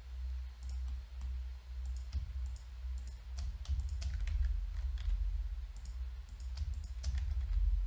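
Scattered clicks of a computer mouse and keyboard, some in quick pairs, over a continuous low hum.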